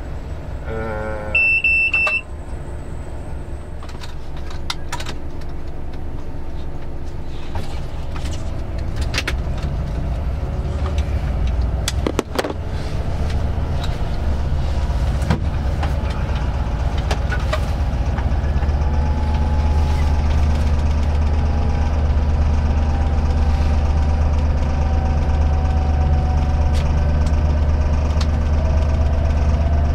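Diesel engine of a Vossloh G 1206 locomotive running, heard from its cab: a steady low drone that grows louder through the second half, with a faint whine that falls and then rises in pitch near the end. A short electronic beep sounds about a second and a half in.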